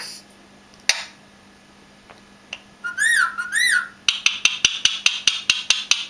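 Indian ringneck parakeet giving two short wavering whistles that rise and fall, then a fast, even run of sharp clicks, about six a second.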